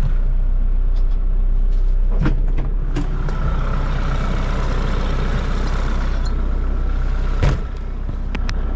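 Kubota MX6000 tractor's diesel engine running steadily as the tractor is driven, with a few clunks and rattles, the loudest about seven and a half seconds in.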